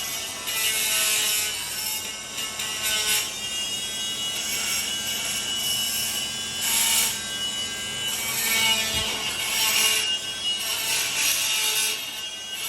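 Power tool sanding old paint off the bus's riveted metal roof: a motor whine under a steady abrasive rasp that swells and eases several times as the tool is pressed and moved.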